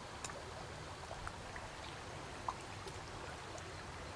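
Faint, steady rush of water flowing out below a dam, with a few faint clicks.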